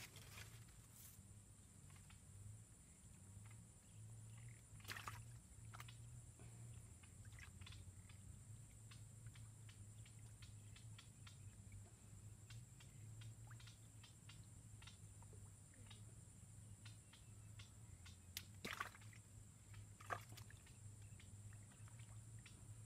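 Near silence at a pond's edge: a faint steady low hum with scattered faint ticks and clicks, a few sharper ones about five seconds in and twice near the end.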